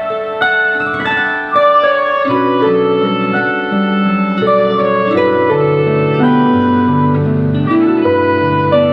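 Instrumental music of held, layered notes; a lower bass part comes in about a second and a half in and the music gets louder.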